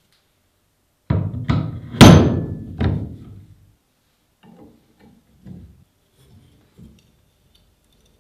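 Four heavy booming impacts in quick succession, the third the loudest and ringing out. Several soft clunks follow as a hand works the metal shear.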